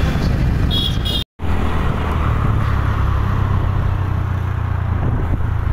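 Motorcycle engine running steadily under way, with road noise. The sound cuts out for a moment about a second in, then carries on.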